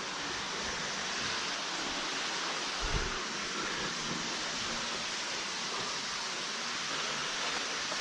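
Steady rush of water falling down the underground waterfall in a cave pit, with a single low thump about three seconds in.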